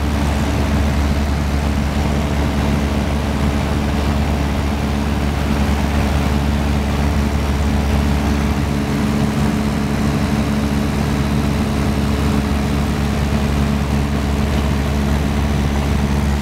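Small aircraft's engine and propeller droning steadily, heard inside the cabin: a constant low hum with steady tones above it.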